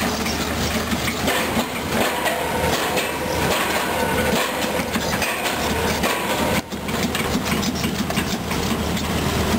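Volvo EC210B hydraulic excavator's diesel engine running steadily under working load, with a continuous metallic clatter from the machine, broken by a very short dropout about two-thirds through.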